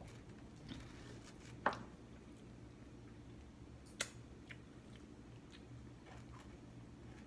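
Soft mouth sounds of eating pizza by hand: quiet chewing with a few wet lip smacks, two of them sharp, the second as fingers are licked about four seconds in. A low steady room hum lies underneath.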